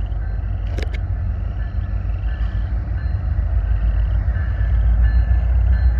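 Distant Union Pacific diesel locomotives hauling a train of tank cars: a low, steady rumble that grows louder near the end as the train approaches.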